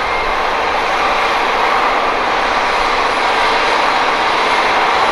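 New Holland tractor running under load as it pulls a cultivator through a field, a steady unbroken engine noise with no clear note.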